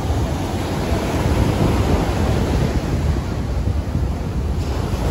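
Ocean surf breaking and washing up a sandy beach, a steady rush of waves, with wind buffeting the microphone as a low rumble.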